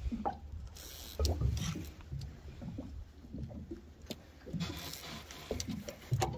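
Water slapping and lapping against the hull of a small boat, with irregular knocks and a steady low wind rumble on the microphone; two brief hissy splashes come about a second in and near five seconds.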